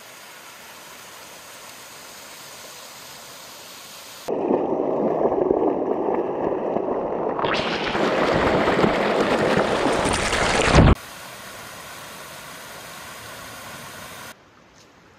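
Creek water pouring over sandstone ledges and small waterfalls, a steady rush with no other sound. It is soft at first, much louder from about four seconds in, and loudest and hissiest from about seven to eleven seconds in, where it shoots down a narrow rock chute. It then drops back to a fainter rush and grows fainter still near the end.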